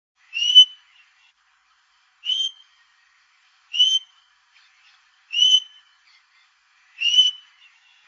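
Male Australian king parrot calling: a short, high-pitched piping whistle given five times, about one every one and a half seconds.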